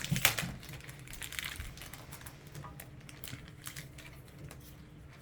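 Handling of a foil Pokémon booster-pack wrapper and trading cards: a run of light crinkles and ticks, busiest in the first second and sparser after.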